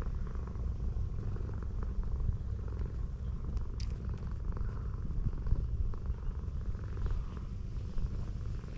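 Tortoiseshell cat purring steadily, a continuous low rumble, while being stroked.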